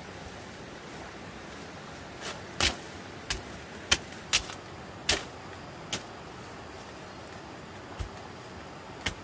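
Sharp, irregular knocks and clicks, about seven in quick succession between two and six seconds in and two more near the end, over a steady background hiss.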